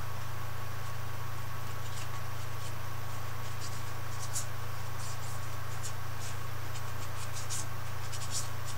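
Paintbrush strokes on canvas: short, scratchy dabs and drags, a few a second and irregular, starting about two seconds in. A steady low hum sits under them.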